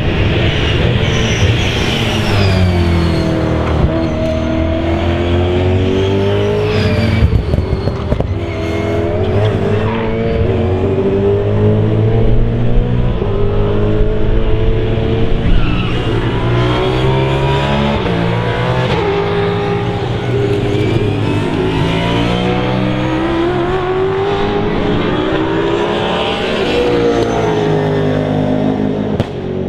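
BMW M3 E92 race cars' V8 engines run hard past the track, revving up through the gears and dropping on the lift-offs, the pitch climbing and falling again and again.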